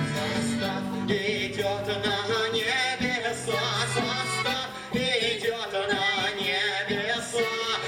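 Music: a passage of a Russian song with no words, a wavering melody over steady accompaniment.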